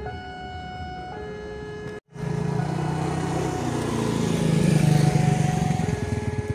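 Engine of a passing vehicle running, cutting out briefly about two seconds in, then swelling to a peak about five seconds in and easing off into a fast pulsing.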